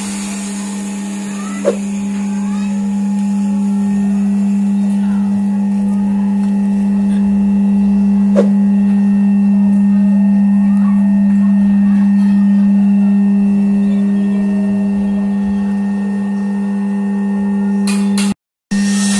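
Cashew-shell oil press machine running with a steady, even-pitched hum, with two brief clicks: one a couple of seconds in, one about eight seconds in. The hum breaks off for a moment near the end.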